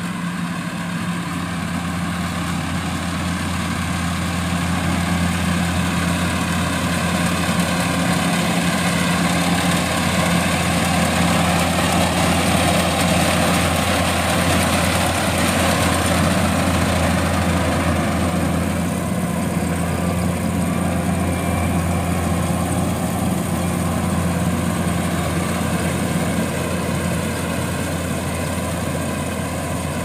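Kubota AR70 crawler combine harvester's diesel engine running steadily while it cuts rice, with the noise of its working machinery. It grows louder as the machine comes close around the middle, then eases off as it moves away.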